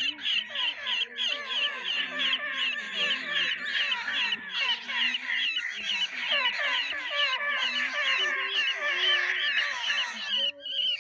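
Cartoon rabbit screaming sound effect: a fast, unbroken run of high-pitched squeals, about four a second, with a short break near the end.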